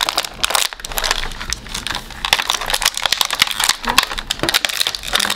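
Clear plastic blister tray and plastic wrapping crinkling and crackling as hands pull an action figure out of its packaging: a dense, irregular run of sharp crackles.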